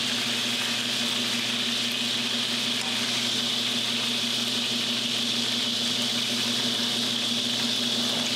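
Chicken thighs and hot fat sizzling in a skillet: a steady hiss that does not let up, with a low steady hum underneath.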